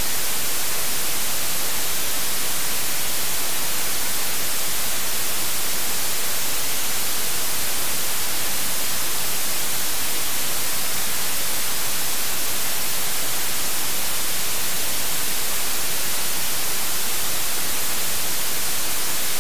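Steady, loud hiss of static, like white noise, with no change in level and no tone or voice in it; it is brightest in the treble.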